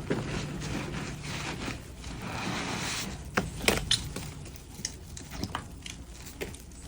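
Soapy, foamy sponge being squeezed: wet squelching and a fizzing hiss of foam, then a cluster of sharp squeaks about three and a half seconds in, with scattered smaller squeaks and drips after.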